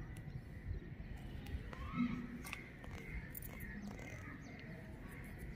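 Fingernails picking and pinching nits off hair strands: faint, scattered small clicks and rustles.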